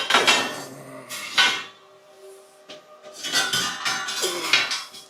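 Metal clanking and scraping in several short bursts, as steel parts of a frame are handled and knocked about, over a faint steady hum.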